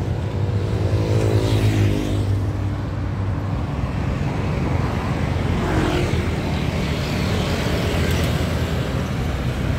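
Busy road traffic at close range, cars and motorcycles passing with a steady low engine rumble and tyre noise. About a second in, a passing vehicle's engine note falls in pitch as it goes by.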